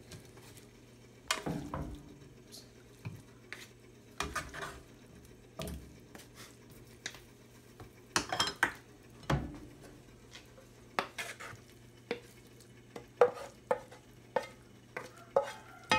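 A cooking utensil scraping and knocking against the pan and plate as the sautéed bottle gourd is dished out, in a scatter of separate short scrapes and clinks. A faint steady low hum runs underneath.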